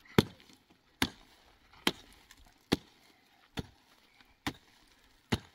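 Seven sharp, evenly spaced blows a little under a second apart: a hand tool striking steadily in building work.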